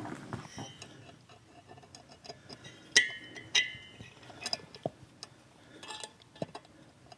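Small metal clicks and light clinks of a steel scriber and tweezers working hardened valve keepers onto a valve stem, with two brighter ringing clinks about three seconds in.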